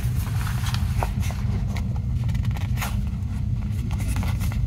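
Paper sticker sheets handled and shuffled, giving a few short crisp rustles and taps. A steady low background rumble runs underneath and is the loudest sound.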